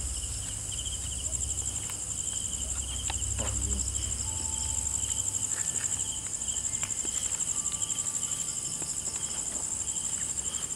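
A night-time insect chorus: several high-pitched, rapidly pulsing trills layered over one another and sounding steadily. A low rumble sits underneath for about the first half.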